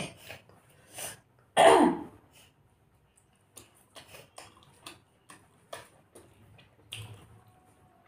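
A woman coughs once, loud and throaty, about a second and a half in. It is followed by soft, sharp mouth clicks and smacks of chewing a momo dumpling, about two a second.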